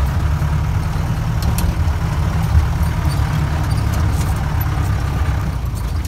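Off-road jeep heard from inside its cabin as it drives up a rough dirt track: a steady, loud low engine and road rumble.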